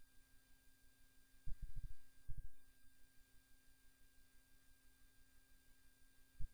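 Steady electrical hum made of a few pure tones, with a few short low thumps around two seconds in.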